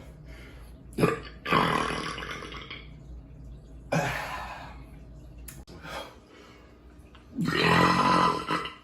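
Three long, loud belches from drinking carbonated beer, spaced a few seconds apart; the last is the loudest.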